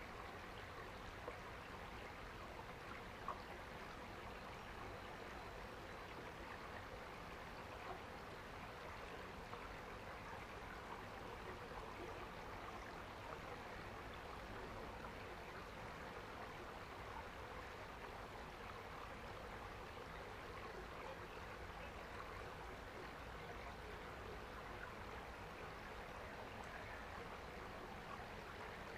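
A small stream running and trickling steadily over stones, with two small clicks about one and three seconds in.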